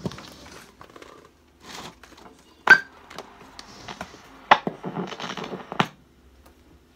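Handling noise: knocks, clicks and rattles as a folding electric guitar is shifted on its tweed amp case and a cable is handled and plugged into a green overdrive pedal. A sharp click about a third of the way in is the loudest, with more clicks and a run of rattles later on. A faint steady hum sits underneath.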